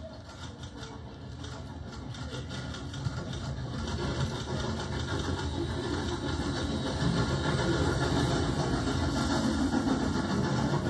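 Narrow-gauge steam locomotive hauling a passenger train at close range; its running sound grows steadily louder as it approaches and goes by.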